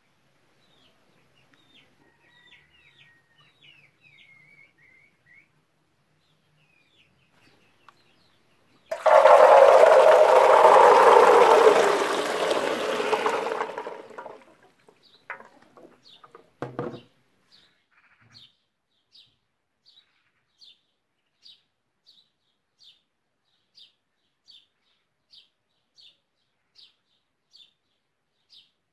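Water pours out in a rush for about five seconds and fades away as washed unripe grapes are emptied from their washing bowl into a metal colander. Two knocks follow. Birds chirp faintly before the pour, and afterwards a single bird repeats a short chirp a little more than once a second.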